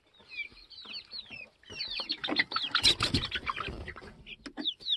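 Chickens crowding into their coop: many short, high, falling chirps and peeps, with a louder stretch of rustling and scuffling about two seconds in as the birds jostle at the doorway.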